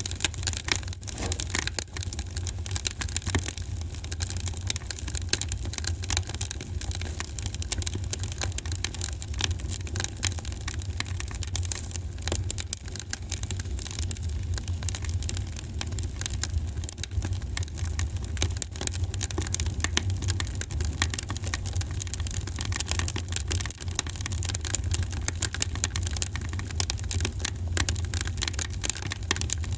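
Wood fire burning in a fireplace: a steady low roar of the flames with constant irregular crackling and popping of the burning wood.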